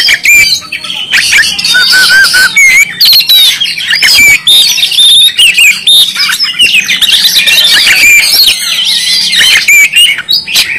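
Oriental magpie-robin (kacer) singing loudly and without pause: a rapid, varied stream of whistled, gliding notes mixed with sharp clicks.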